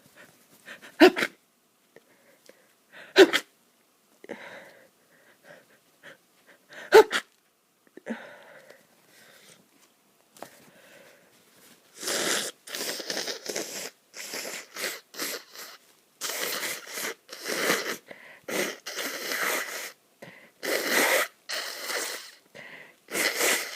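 A person with a stuffed-up nose sneezing three times, sharp and loud, in the first seven seconds. From about halfway on comes a long run of forceful, noisy bursts of air through the congested nose, one after another.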